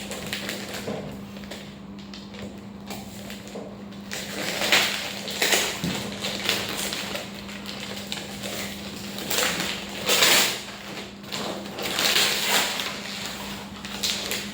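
Gift wrapping and packaging rustling and crinkling in several bursts as a present is unwrapped, over a steady low hum.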